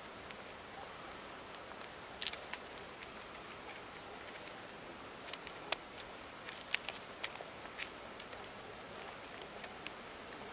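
Scattered light metallic clicks and ticks as the steel hook and coil spring of a homemade spring-loaded pike trap are handled, over a faint steady hiss.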